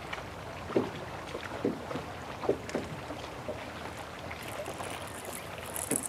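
Water lapping and slapping irregularly against the hull of a fishing boat at rest. A faint high hiss joins about four and a half seconds in.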